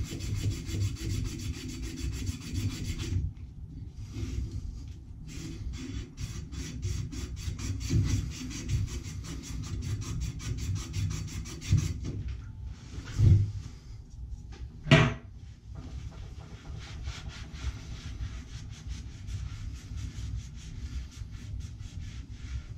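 A strip of abrasive cloth pulled back and forth around a 1/2-inch copper pipe in rapid rubbing strokes, shoeshine-style, cleaning the copper bright before soldering. Two louder knocks stand out about 13 and 15 seconds in.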